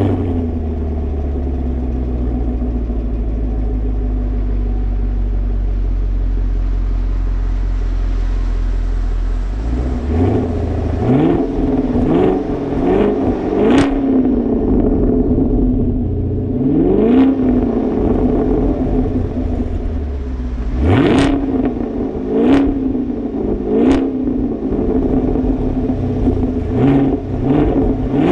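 2018 Chevrolet Camaro SS's 6.2-litre LT1 V8 through its stock NPP dual-mode exhaust with the valves open in Track Mode: idling steadily for about ten seconds just after start-up, then blipped in a series of quick free revs, each rising sharply and dropping back to idle.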